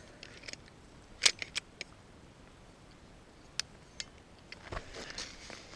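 Scattered sharp clicks and taps with some rustling, from someone moving about and handling things. The loudest click comes about a second in, and the taps and rustling grow busier near the end.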